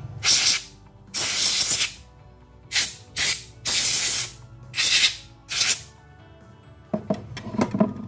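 Canned compressed air sprayed through a straw into a laptop CPU fan to blow out dust: about seven short hissing blasts, the longest a little under a second, with gaps between them. The fan is held still so the air does not spin it.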